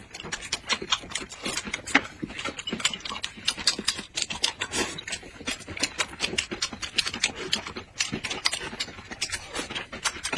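Close-miked eating: wet chewing and lip smacking of dumplings, a quick, irregular run of small clicks and smacks.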